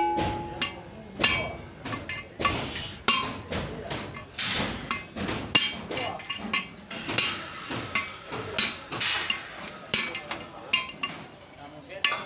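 Metal being struck with a hammer over and over, irregular blows about one or two a second, some leaving a short metallic ring.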